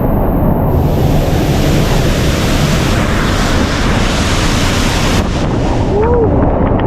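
Waterfall heard from behind its falling curtain: a loud, steady rush of water, with spray and wind buffeting the microphone.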